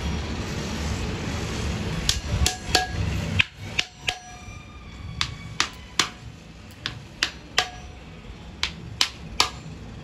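Small hammer tapping a metal tool held against a carved wooden tray: a string of sharp, irregular taps, about two a second, some with a short metallic ring, starting about two seconds in.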